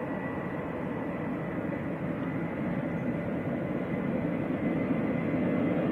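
Jet airliner's engines at takeoff power, a steady rushing with a faint high whine that slowly grows louder as the aircraft rolls for departure.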